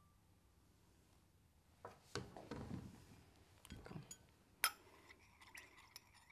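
A teaspoon stirring coffee in a white china cup, clinking against its sides: a few duller knocks, then one sharp clink a little past halfway and a run of lighter clinks near the end.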